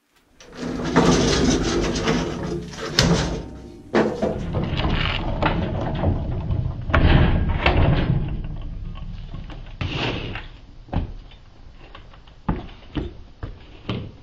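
Heavy bandsaw on a welded steel mobile base being moved on its casters over a concrete floor: a rolling rumble mixed with metal clanks and knocks. It dies down after about ten seconds to a few scattered clicks.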